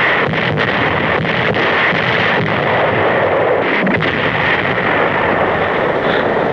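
Battle sound effects of heavy artillery fire: a dense, continuous din with a few sharper bangs scattered through it.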